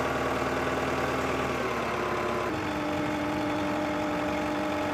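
Engine of the machine lifting the strapped bundle of roofing steel, running steadily. Its tone shifts slightly about two seconds in.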